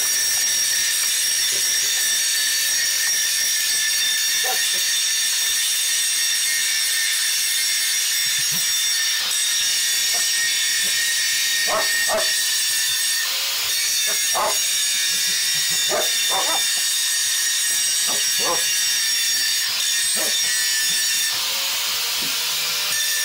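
Angle grinder cutting through a metal pipe: a steady, high-pitched whine of the disc in the metal, the pitch shifting near the end as the load changes. A dog makes a few short sounds midway as it snaps at the sparks.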